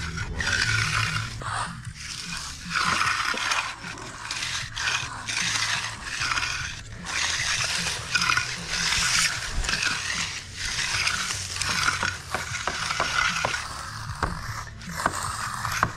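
Trowels scraping over fresh concrete in repeated strokes, with a steady low hum underneath.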